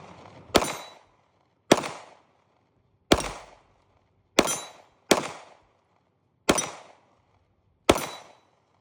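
Seven gunshots fired one at a time at an uneven pace, roughly one every second or so, each sharp crack trailing off in a short echo.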